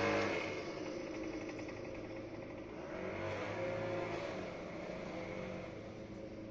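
Small petrol engine of lawn equipment running steadily, fading away in the first second, swelling again about three seconds in, then fading.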